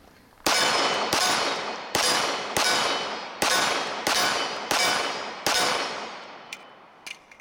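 A Commander-size 1911 pistol fired eight times in steady succession, about one shot every 0.7 seconds, each shot echoing as it fades. A few faint clicks follow near the end.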